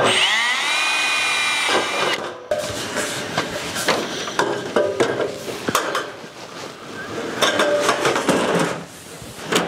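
Power drill spinning up with a rising whine and running steadily for about two seconds, then stopping. After it come irregular knocks, clicks and scraping, busiest near the end.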